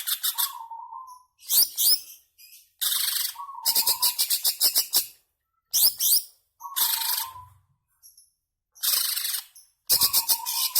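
Cucak ijo (green leafbird) singing in repeated bursts of rapid, high chattering about a second long with short pauses between, some bursts carrying a short lower buzzy note and quick upward-sweeping whistles.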